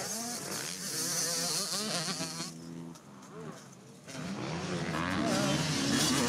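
Motocross dirt bike engine revving up and down as it is ridden over the track, its pitch rising and falling with the throttle. It drops away for about a second and a half around the middle, then builds again toward the end.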